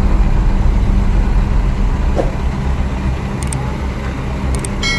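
Crawler excavator's diesel engine running with a steady low rumble, with a faint knock about two seconds in.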